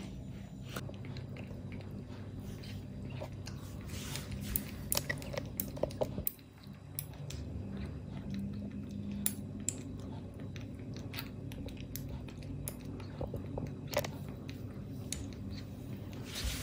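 Kitten suckling milk replacer from a nursing bottle: wet, irregular smacking and clicking sucks, densest about four to six seconds in.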